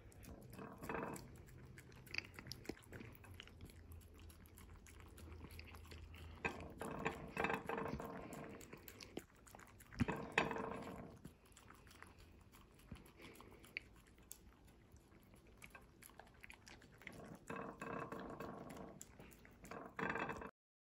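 Miniature dachshund licking and chewing food scraps off a ceramic plate, quiet wet lapping and clicking in uneven spells, with one sharp knock about ten seconds in.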